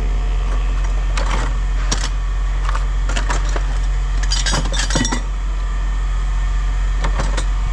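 Pieces of scrap metal clinking and clattering as they are handled and dropped, several separate clinks with a quick cluster about four to five seconds in, over a steady low hum.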